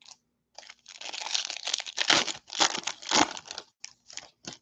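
Foil wrapper of a Bowman baseball card pack being torn open and crinkled by hand. A dense crackle starts about a second in and lasts a couple of seconds, followed by a few short crinkles.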